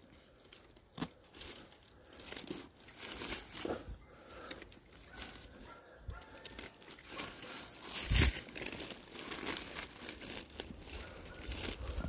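Digging in forest soil and dry leaf litter: irregular scraping, rustling and crunching of leaves and earth, loudest about eight seconds in.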